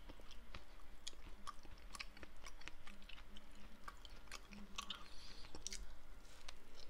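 Strawberry muffin being chewed close to the microphone: a run of soft, irregular small clicks and smacks of the mouth.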